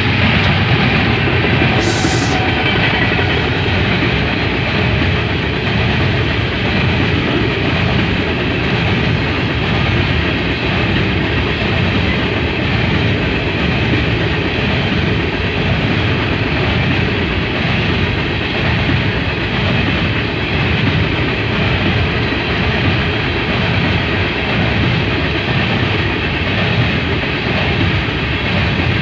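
CSX coal train passing at close range: the rear locomotive goes by at the start, then coal hopper cars roll past with a steady rumble of steel wheels on the rails. A short hiss comes about two seconds in.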